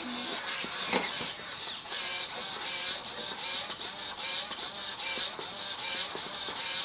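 Powerful hobby servo motors whirring and whining as they drive a robot doll's limbs, in many short whines that rise and fall as each move starts and stops. A sharp click about a second in.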